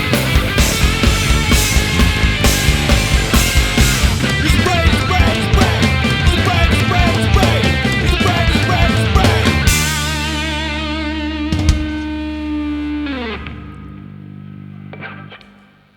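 Heavy rock music played out instrumentally: distorted guitars over a steady, fast drum beat, then held notes with vibrato from about ten seconds in, a falling slide, and a fade-out near the end.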